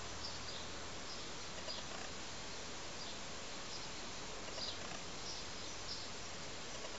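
Steady background hiss with faint, short, high chirps scattered through it, like an outdoor ambience.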